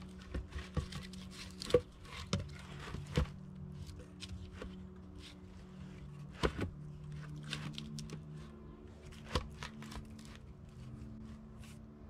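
Wooden knocks and scrapes of logs being handled and test-fitted into a window opening, with several sharp knocks standing out, over a steady low hum.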